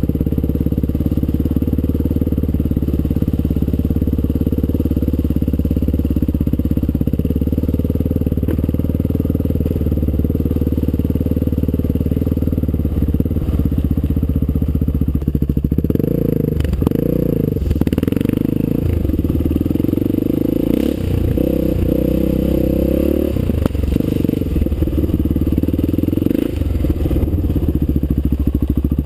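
Honda XR600's air-cooled single-cylinder four-stroke engine running under way off-road, steady at first. From about halfway in, its pitch rises and falls again and again as the throttle is opened and closed.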